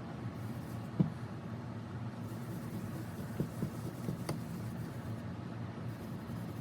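Steady low hum with a few light knocks: one sharper knock about a second in, two softer ones past the middle, and a short ringing tick soon after.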